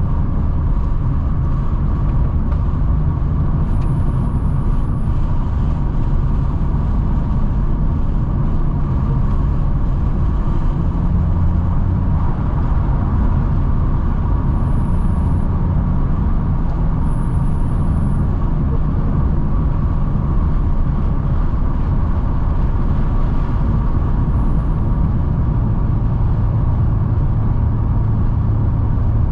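FPV F6's turbocharged inline-six and tyres at a steady cruise: an even low engine drone and road rumble that holds level without revving up or down.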